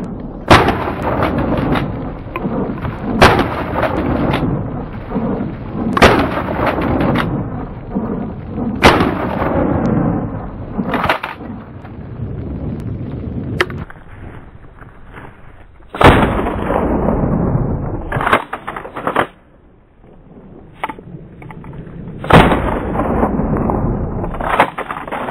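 Mossberg 590 12-gauge pump shotgun firing, about six loud blasts a few seconds apart, each trailed by a long rolling echo. Smaller bangs and clacks fall between the shots.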